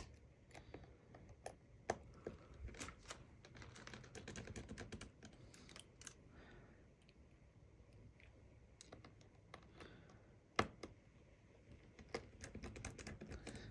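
Faint, irregular clicks and ticks of a precision screwdriver driving tiny screws into a MacBook Air's display hinge brackets, with small metal parts being handled; a few sharper clicks stand out, one about two seconds in and another near the end.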